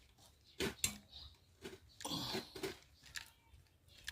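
Scattered metal clinks and knocks, with a short scraping rush about two seconds in, from a wheel spanner and an improvised metal bar being worked on a car's wheel nuts.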